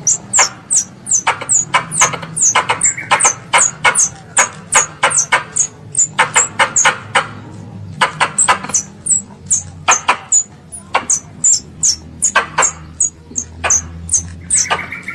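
Squirrel giving a rapid series of sharp, high chirps, each dropping in pitch, about three to four a second, in bouts with short pauses between them. It is the call of a young squirrel calling its mother.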